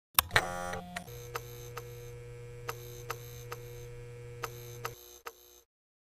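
Sound effect of a light switch being flipped and lights buzzing on: a couple of sharp clicks, then a steady electrical hum with scattered crackling ticks. The hum cuts out about five seconds in, leaving a few more ticks.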